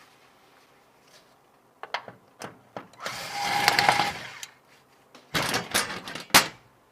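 Hands handling computer hardware and its packaging: a few sharp clicks, then a rubbing scrape with a faint squeak about three seconds in, then a cluster of knocks near the end.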